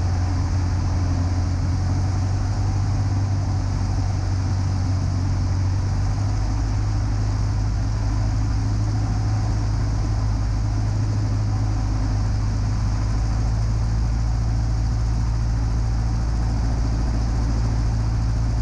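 The 1946 Aeronca Champ's piston engine and propeller droning steadily in level flight, with a deep, even hum and rushing noise above it.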